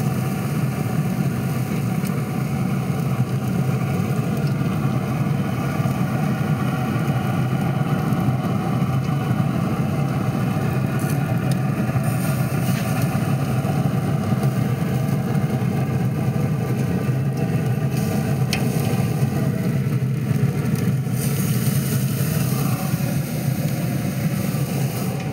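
Steady low hum and rush of a Pit Boss pellet grill running with its lid open, with a few light clicks.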